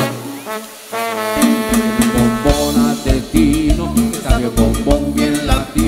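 Live cumbia band playing an instrumental break: held chords over bass and drums, the full band coming back in strongly about a second and a half in after a brief thinning.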